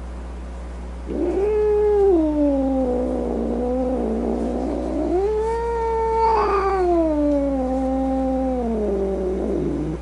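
Domestic cat yowling: two long, drawn-out calls, each starting high and sliding slowly down in pitch, the first beginning about a second in and the second following straight on. A steady low hum runs underneath.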